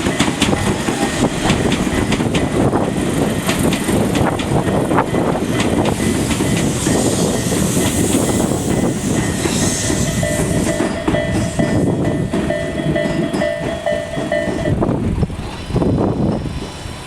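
A train passing over a level crossing, its wheels clattering over the rail joints, while the crossing's electronic warning bell keeps ringing. The train noise eases off and the bell stops about fifteen seconds in.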